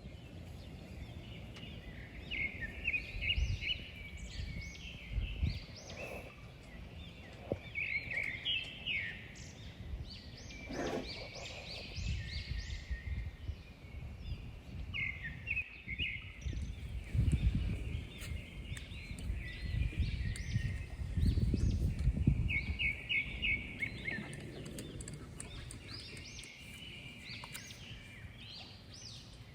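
Birds chirping and singing in quick repeated phrases throughout, with bursts of low rumbling noise in the middle.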